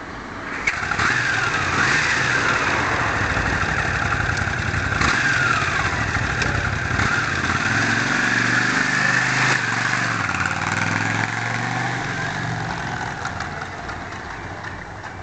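Cruiser motorcycle engine started about a second in, then running loud with the engine note rising and falling, and easing off over the last few seconds.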